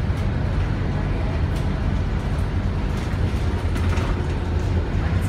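Steady low rumble of a moving single-decker bus heard from inside the cabin: engine and road noise.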